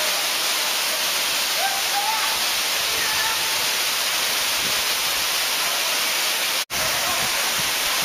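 Steady rush of water falling down a tall, cascading waterfall, with faint voices in the background. The sound cuts out for an instant about two-thirds of the way through.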